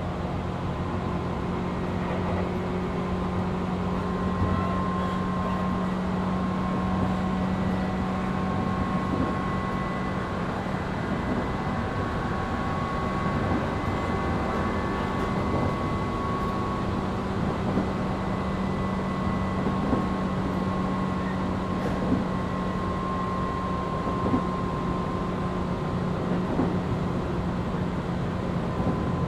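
Tobu 8000 series electric train running at a steady speed, heard from inside the motor car: constant running noise with a motor whine that drifts only slightly in pitch, and a few light knocks from the wheels.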